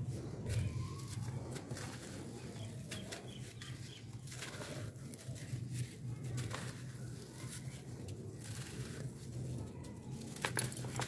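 Dry charcoal chunks and dust crumbled and squeezed between bare hands in a clay pot: gritty, dusty crunching with trickles of falling powder, and a sharper crunch near the end.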